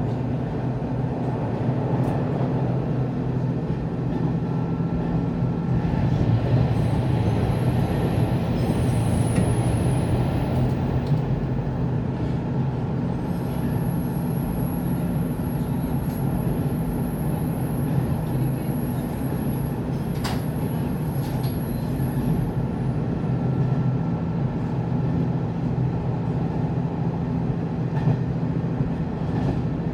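Sanriku Railway diesel railcar running between stations, heard from inside the car: a steady low engine and rail rumble. A thin high-pitched wheel squeal sounds about seven seconds in, then again for about ten seconds in the middle.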